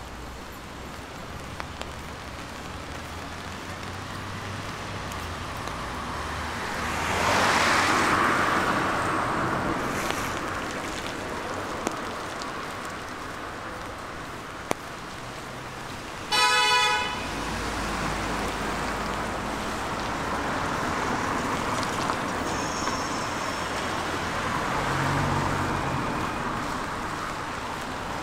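Road traffic noise with a vehicle swelling past about seven seconds in. About two-thirds of the way through, a car horn gives one short toot, the loudest sound here.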